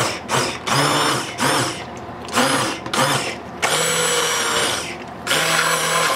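Braun immersion blender motor whining as it purées boiled potatoes in their water in a stainless steel pot, pulsed on and off in short bursts of about half a second for the first few seconds, then held on in two longer runs.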